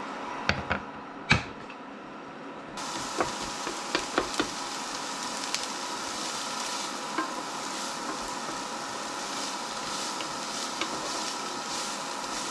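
Chopped onion frying in a hot pan, a steady sizzle that starts suddenly about three seconds in. Sharp knocks of a utensil against the pan come before it and again just after, with stirring.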